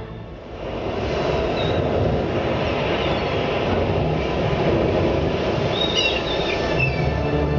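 A loud, dense rushing rumble with no clear tone, part of the show's soundtrack over the loudspeakers. It swells up in about the first second and holds steady, with a few short high squeals near the end.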